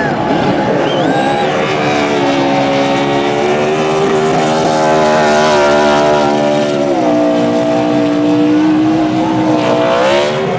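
NASCAR Busch Series stock car's V8 engine held at high revs during a victory burnout, spinning the rear tires into smoke. The engine note holds steady, drops a step about seven seconds in and rises again near the end.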